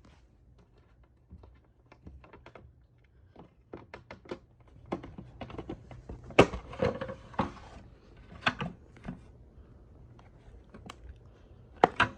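Irregular clicks, knocks and thunks of hard plastic parts being handled, densest and loudest in the middle, with a sharp double knock near the end; no motor is running.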